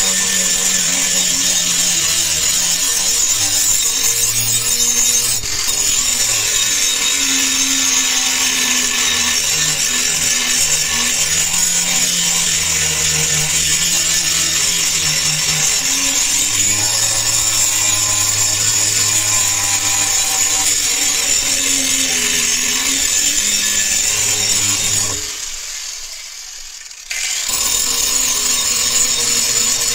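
Angle grinder grinding the steel of a meat cleaver blade: a steady high hiss of the disc on metal, with the motor's hum shifting in pitch as it bears on the work. The sound drops away for a couple of seconds near the end, then resumes.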